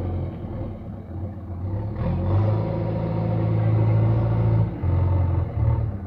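JCB 3DX backhoe loader's diesel engine running as the machine works. The engine note drops back for about two seconds near the start, then rises again and holds steady, with a short dip near the end.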